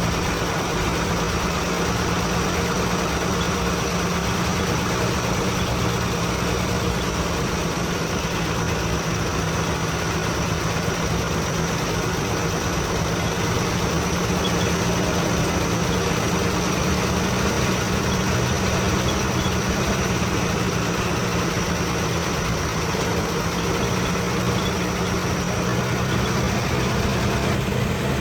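Heavy diesel engine running steadily at an even speed, with no revving.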